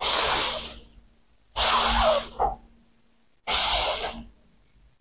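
A girl's voice making the unvoiced phonic 's' sound as a pronunciation drill: a hissing 'sss' three times, each just under a second long, with short pauses between.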